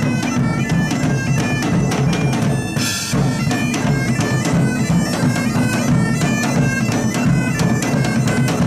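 Medieval-style band of bagpipes and large drums playing: the bagpipes' melody over their steady drone, with regular drum beats.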